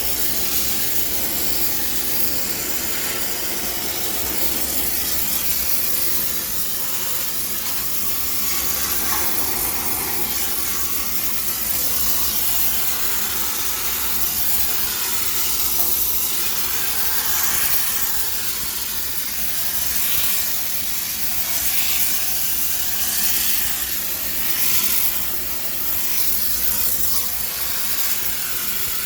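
High-pressure steam cleaner jetting steam in a steady hiss that swells and eases a little as it is worked over a washing machine to sterilise it.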